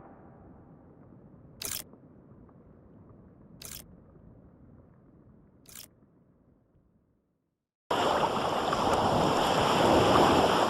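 Three camera-shutter clicks, about two seconds apart, over a fading low tail. About eight seconds in, a steady rushing noise starts suddenly.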